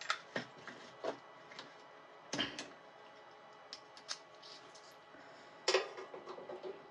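Scattered clicks and knocks of hand tools being handled: a plastic screwdriver case picked up and set down, then a screwdriver put to the heater rod's terminal screw. A stronger knock comes about two and a half seconds in and the loudest near the end.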